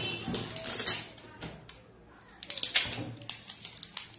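Quick clicks and scrapes of a hand on a taped cardboard shipping box, in two short clusters: one at the start and another a little past halfway.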